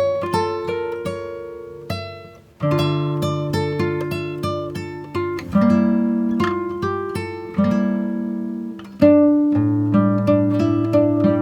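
Background music: acoustic guitar played in plucked, ringing notes and chords.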